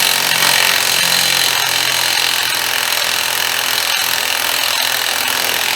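A power tool running steadily at full speed for about six seconds with a high, even whine, then cutting off.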